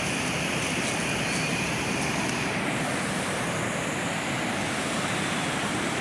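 River swollen by heavy rain, fast floodwater rushing past in a steady noise.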